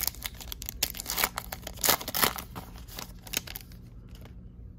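A Topps Chrome baseball card pack's wrapper being torn open and crinkled by hand: a string of sharp rips, the loudest two close together about two seconds in, then dying down.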